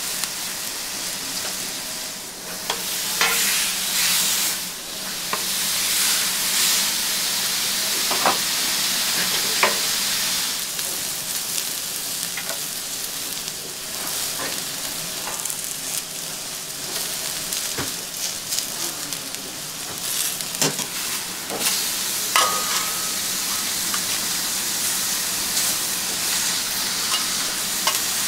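Beef fat, steak and bean sprouts sizzling on a hot steel griddle and on cast-iron sizzle platters, a steady hiss broken by sharp clicks of metal tongs now and then.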